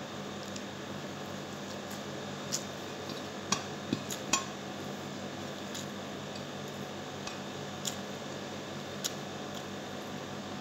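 Light clinks and taps on a ceramic dinner plate as food is gathered from it, a handful of short sharp clicks bunched together a few seconds in, with single ones later, over a steady low hum.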